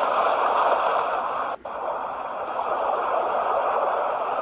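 Ocean-wave sound played through the small speaker of a portable white noise machine: a steady rushing hiss. It cuts out briefly about a second and a half in, then stops abruptly at the end.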